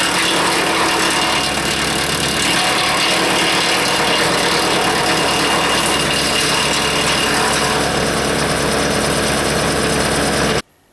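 Tractor engine running steadily, driving a Hanmey WCX5 PTO wood chipper. It cuts off abruptly near the end.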